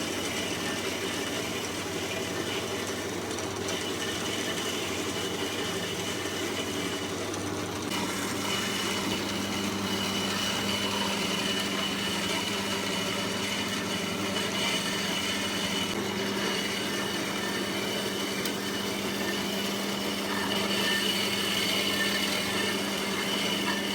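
A machine running steadily: a constant motor hum under a dense hiss, with no change in speed.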